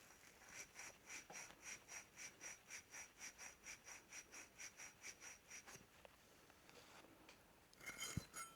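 Sandpaper rubbing back and forth on a small metal part to clean off corrosion, a faint scratchy stroke about three to four times a second that stops about six seconds in. A few sharp small clicks of the part being handled follow near the end.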